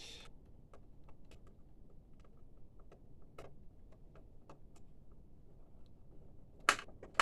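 Faint, irregular small clicks and ticks of a screw being fitted and driven into a printer's frame with a screwdriver, with a sharper click near the end.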